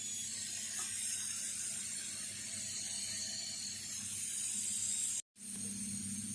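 Steady hissing with a faint crackle over a low hum. It cuts out for an instant about five seconds in, then resumes.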